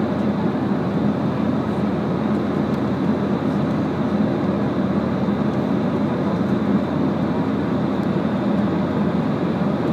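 Steady noise of engines and rushing air inside an airliner cabin, even throughout with no sudden sounds.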